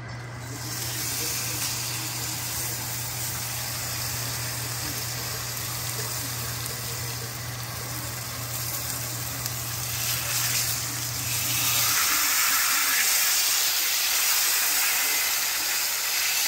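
Bone-in ribeye steaks sizzling as they fry in browned butter in a cast-iron skillet, a steady hiss that starts about half a second in and grows louder after about ten seconds.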